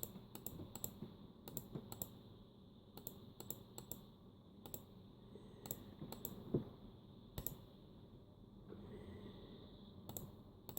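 Laptop keyboard keys clicking faintly in short, irregular bursts of typing and key presses.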